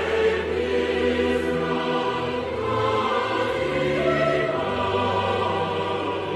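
Background music: a choir singing long held chords over orchestral strings and a low bass, the chords changing every couple of seconds.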